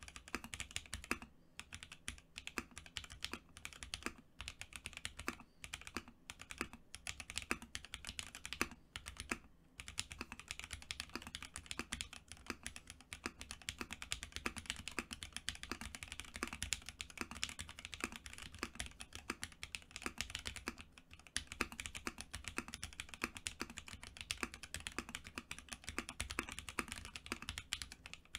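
Typing on a custom E-White Prophet 60% mechanical keyboard with lubed Alpaca v2 linear switches on a polypropylene plate and Infinikey x TKC BOW keycaps. It gives a fast, steady stream of key clacks with a few short pauses.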